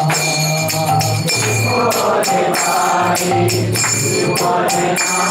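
Kirtan: a group of voices singing with hand cymbals (kartals) clashing about three times a second, over a low held tone.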